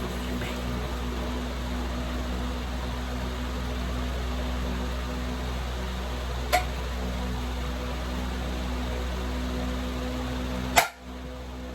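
A steady low hum, with a sharp click about six and a half seconds in and a louder click near the end, after which the hum drops away.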